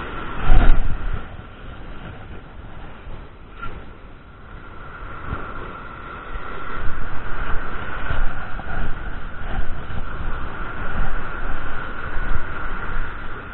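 Wind buffeting the body-worn camera's microphone over small surf washing up the beach, with a loud rumbling whoosh about half a second in as the surf rod is swung into a cast. The wind noise grows louder and gustier from about six seconds in.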